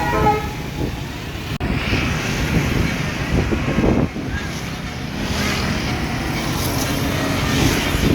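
A bus's multi-note Basuri air horn cuts off just after the start. Steady road and traffic rumble of passing vehicles follows, with a sudden break about a second and a half in.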